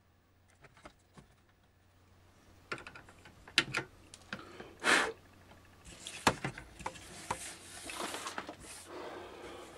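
Small clicks, knocks and clatter of hand tools and parts being handled on a workbench during soldering, starting a few seconds in after a quiet stretch. In the second half there is a run of soft rustling with small ticks.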